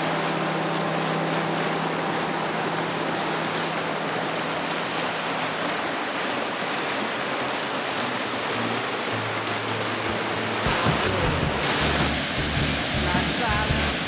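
Rushing creek water over rapids under background music of held low notes; near the end a beat with heavier bass comes in.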